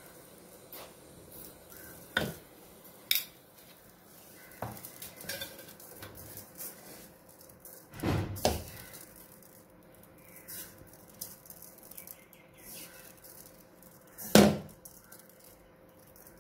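Hands mixing and tossing string hoppers (idiyappam) in a metal pan: a soft rustle broken by a handful of knocks and clinks against the pan, the loudest near the end.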